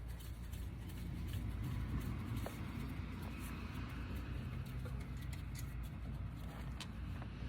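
Faint, scattered clicks of hand tools on brake hardware over a low, steady rumble.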